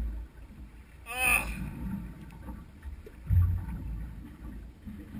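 Wind buffeting the microphone over water slapping on a small boat's hull, with a low thump a little after three seconds. A short pitched cry comes about a second in.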